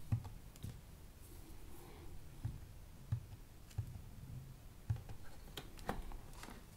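Faint, scattered clicks and taps, about a dozen spread irregularly, from handling a small handheld oscilloscope and its probe.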